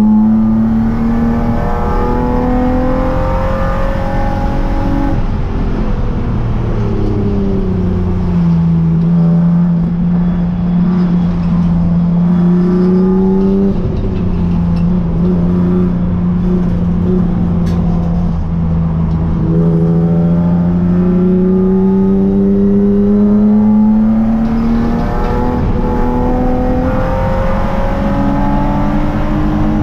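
Spec3 race car engine heard from inside the stripped, caged cabin. The revs climb through the gears with sudden drops at the upshifts, fall away as the car slows, hold low and steady for several seconds, then climb again.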